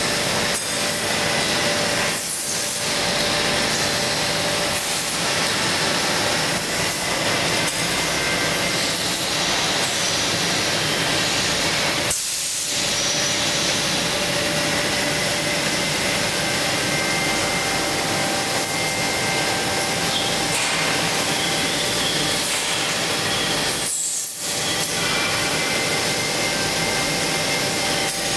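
Steady whirring hiss of running machinery, with faint steady whines over it and three brief dips in the noise.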